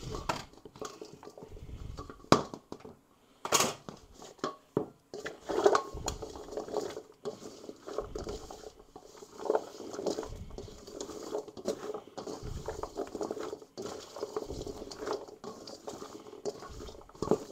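Diced sweet potatoes and vegetables being tossed and stirred in a stainless steel mixing bowl: pieces tumbling and sliding against the metal, with a spatula scraping and knocking on the bowl. A few sharper knocks stand out, about two and three and a half seconds in.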